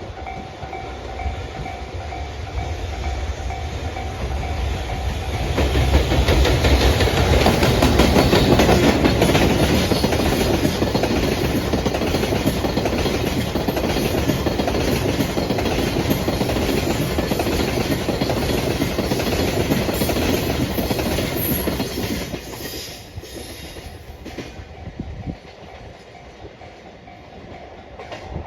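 A JR Freight EF210-100 electric locomotive hauling a train of 14 tank wagons passes over a level crossing, its wheels clicking over the rail joints. The train noise builds, is loudest from about six to twenty-two seconds in, then fades. A level-crossing warning bell rings steadily throughout.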